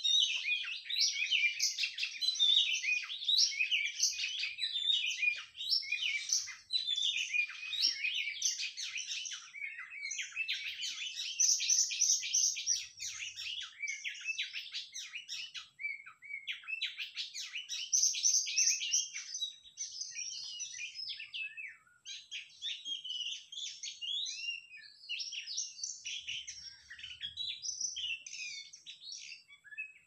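Oriental magpie-robin song: a continuous stream of quick, varied whistles and chirps, busiest in the first two-thirds and sparser toward the end.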